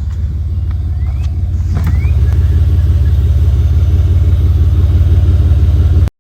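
Exhaust of a 2008 Chevy Impala LS V6 running through a Flowmaster muffler: a deep, steady pulsing drone that swells a little over the first two seconds and then holds. It cuts off abruptly near the end.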